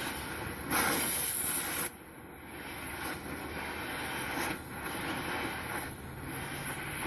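Cutting torch flame hissing steadily against a glass cake stand, with a much louder blast of hiss about a second in that lasts about a second before dropping back.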